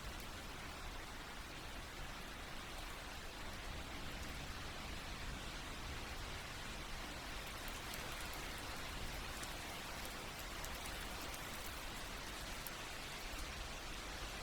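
Steady rain falling on a surface, an even hiss with fine patter of individual drops.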